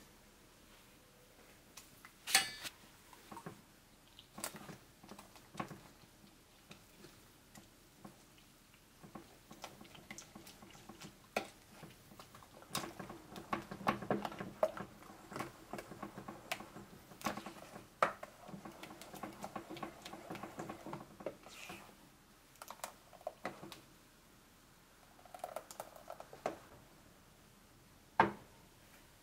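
A red plastic spoon stirring flour-and-water batter in a stainless steel bowl: scattered taps at first, then about nine seconds of steady stirring with the spoon scraping and clicking against the bowl. Near the end, a sharp knock as a ceramic bowl is set down on a wooden cutting board.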